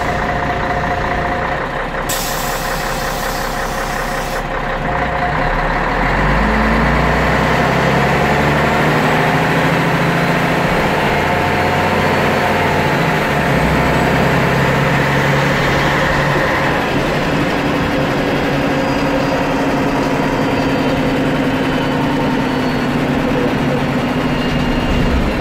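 The 260 hp Scania DSC 11.71 straight-six diesel of a 1997 Scania CN113CLL city bus with a Voith D863.3 automatic gearbox, heard from inside the rear of the cabin. A hiss of air about two seconds in lasts a couple of seconds, then about six seconds in the engine grows louder and climbs in pitch as the bus pulls away and accelerates.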